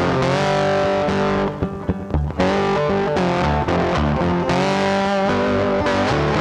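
Background music led by electric guitar, with a short break about a second and a half in, marked by a few sharp hits, before the full sound returns.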